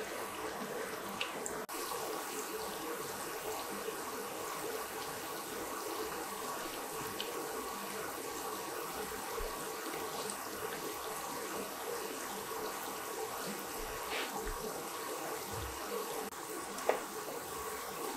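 Paneer cutlets shallow-frying in hot oil in a pan: a steady sizzle with small crackles and pops. A single sharp tap near the end.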